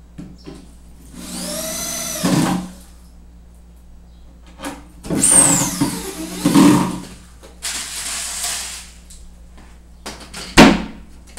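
Cordless drill-driver run in several short bursts, its motor pitch rising and falling with the trigger, as used to drive screws into cabinet panels. A sharp knock near the end is the loudest sound.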